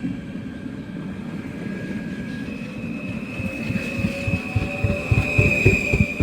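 Train passing close by: a rumble and rapid clatter of wheels that grows louder toward the end, with a steady high whine that steps up in pitch about halfway through.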